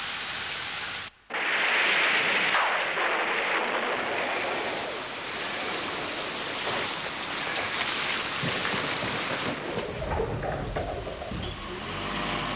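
Heavy rain pouring down steadily. The sound cuts out for a moment about a second in and returns louder, and a low rumble joins in near the end.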